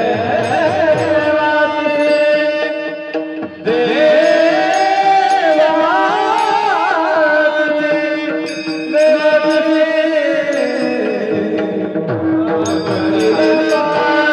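Devotional kirtan music: a long, wavering, wordless sung line over steady held accompaniment, with drum strokes and clinking small hand cymbals keeping time.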